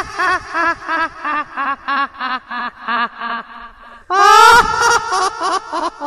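A voice-like cry: a run of short pitched yelps, about four a second, slowly falling in pitch, then a louder rising wail about four seconds in that breaks up into more yelps.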